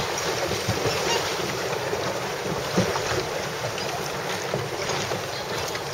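Wind blowing across the microphone over choppy water lapping and splashing around small sailing dinghies, a steady rushing noise with a few small splashes.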